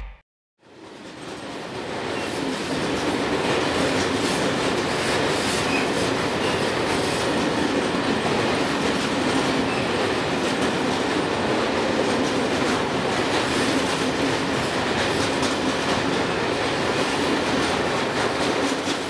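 Freight train of loaded log wagons rolling past, a steady rumble with the wheels clicking over the rail joints. It fades in after a moment of silence near the start.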